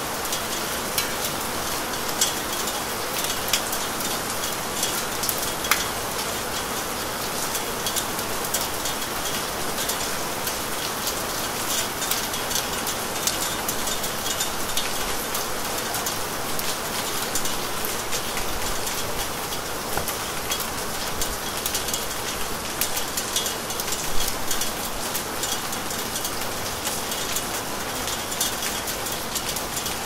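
Steady rain falling, an even hiss dotted with many distinct drop ticks and spatters, with one louder spatter about three-quarters of the way through.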